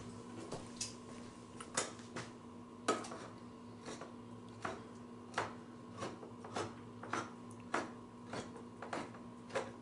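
Hand-cranked can opener working around the lid of a metal food can: a run of short metallic clicks, roughly one every half second or so. A faint steady hum runs underneath.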